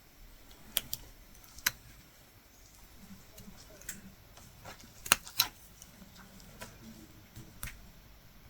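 Irregular sharp clicks of a metal latch hook tool working yarn into rug canvas, its hinged latch snapping open and shut; two close clicks about five seconds in are the loudest.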